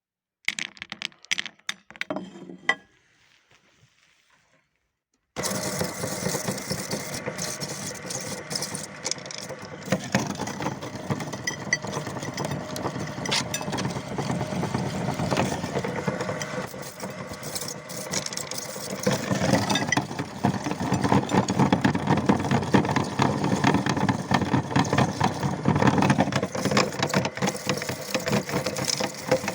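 Light clicking and rattling for a couple of seconds, then an electric meat grinder starts about five seconds in and runs steadily, with many small cracks as it grinds hard candy; it gets louder about two-thirds of the way through.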